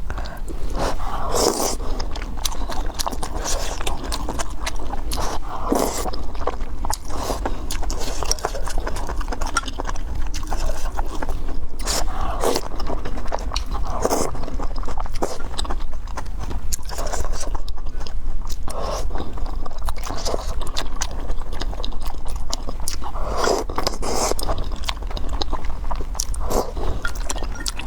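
Close-miked eating: repeated biting and chewing with wet mouth clicks and crunches. A steady low hum runs underneath.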